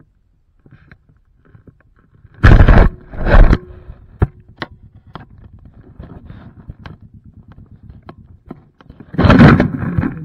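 Handling noise from a camera lying on loose slate scree. There are two loud scraping rustles about two and a half and three and a half seconds in, then a run of small clicks and knocks. Near the end comes another loud rustle as the camera is moved.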